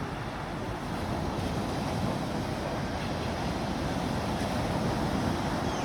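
Sea waves washing steadily, with no distinct breaks.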